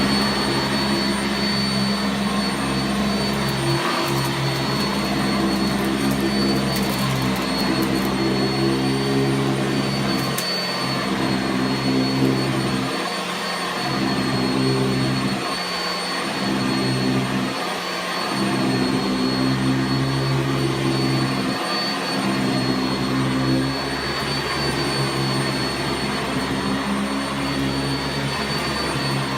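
Sanitaire SC679J upright vacuum cleaner running steadily: a constant motor hum with a thin high whine above it, the low end dipping briefly now and then.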